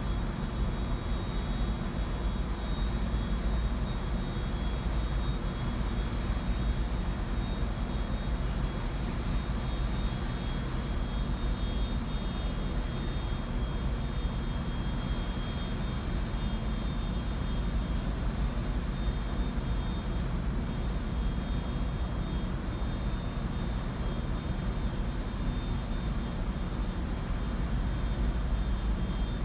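Steady low rumble with wind buffeting the microphone on the open deck of a ship, a faint high whine running through it.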